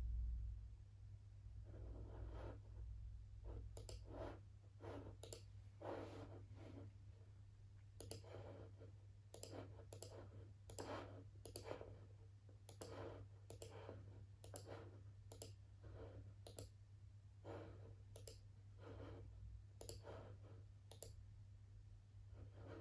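Computer mouse clicking, faint and irregular, about one or two clicks a second and some in quick pairs, over a low steady hum.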